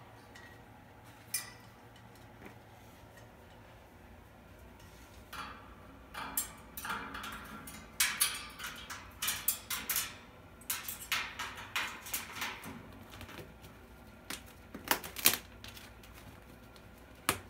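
Irregular clicks, taps and scrapes as an umbrella cockatoo works its beak and feet on the metal top of its cage, starting about five seconds in and busiest through the middle, with a few louder sharp clicks near the end.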